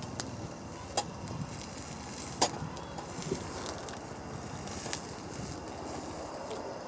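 Wood campfire crackling, with a few sharp pops, the loudest about two and a half seconds in.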